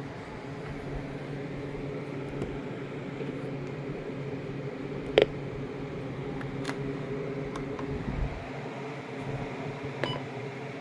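Steady low hum with a faint hiss, broken by one sharp click about five seconds in and a few fainter ticks later.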